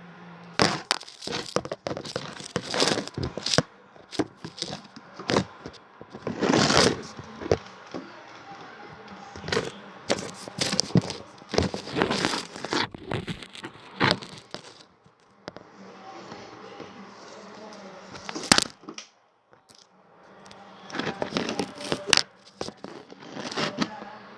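Irregular rustling, crinkling and clicking of toys being handled close to the microphone. The handling pauses briefly a little past the middle.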